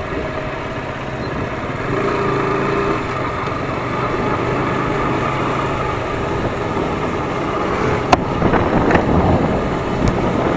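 A vehicle running, with a steady rumble and engine hum and two sharp clicks about eight and nine seconds in.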